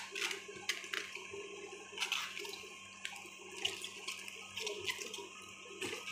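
Crisp cabbage leaves being peeled and torn from a large head by hand, crackling and snapping irregularly, over a faint steady hum.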